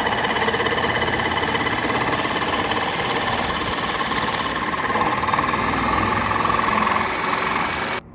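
A handheld power tool running continuously, loud and steady, working on the steel bumper; it starts abruptly and cuts off abruptly near the end.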